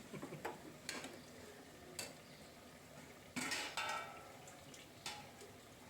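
A spoon stirring the masala, potatoes and drumstick pieces in a metal pressure cooker pot, scraping against the pot, with a few sharp clicks of the spoon on the metal.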